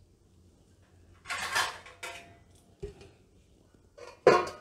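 A stainless steel plate is handled and set down over a stainless steel bowl as a lid. A scraping clatter comes about a second in and a short knock near three seconds. Near the end comes a sharp metallic clank that rings on briefly.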